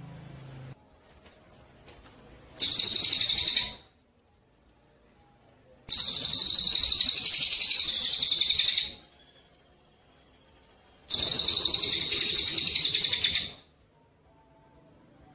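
A songbird's rapid, high-pitched trill, repeated three times with pauses between: about a second long, then about three seconds, then about two and a half. A faint thin high tone lingers in the gaps.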